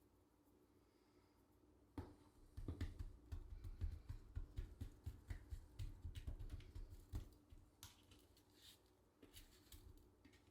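Hands seasoning raw meat with onion powder: a sharp click about two seconds in, then several seconds of quick soft pats and taps that thin out to light ticks.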